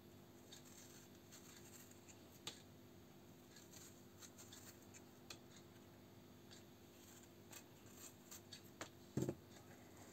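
Faint scraping and small clicks of a ceramic knife peeling a pear, then a single louder knock about nine seconds in as the knife starts cutting on a plastic cutting board.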